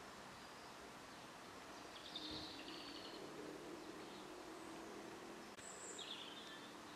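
Faint outdoor background hiss with small birds chirping briefly, once about two seconds in and again about six seconds in.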